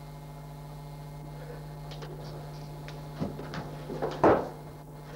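Steady electrical hum with a few knocks near the end, the loudest a sharp thump a bit over four seconds in.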